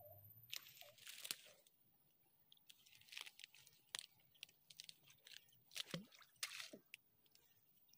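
Faint, scattered rustling and crunching as a mesh umbrella fish trap is handled in long grass.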